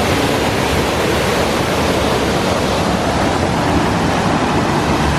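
Waterfall pouring with a loud, steady rush of water.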